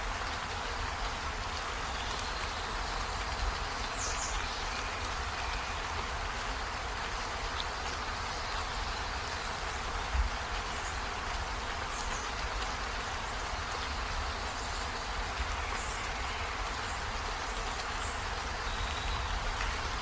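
Steady rain falling, an even rushing patter, with a few brief faint high chirps scattered through it.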